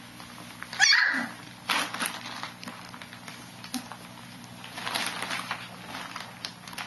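A dog's short, high yelp about a second in, followed by bouts of rustling and scuffling, near two seconds and again around five.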